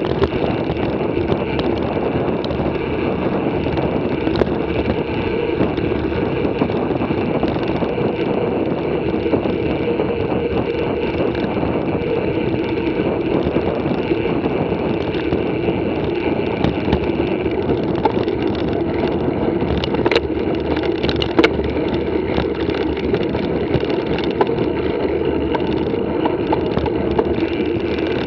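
Wind and tyre noise picked up by a camera mounted on a mountain bike rolling down a paved lane: a steady rumble, with a couple of sharp knocks about two-thirds of the way through.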